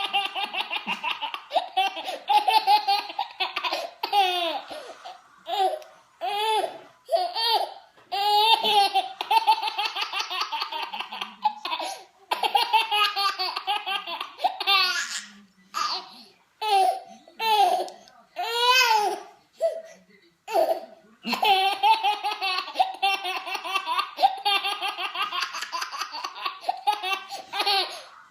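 A baby laughing in long runs of rapid, high-pitched giggles, broken by short pauses and a few single squeals.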